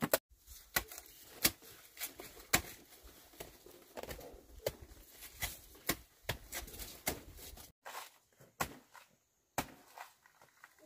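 Machete chopping into the pseudostem of a banana plant to fell it: a long run of sharp strikes, roughly one every half to two-thirds of a second, with a short pause near the end.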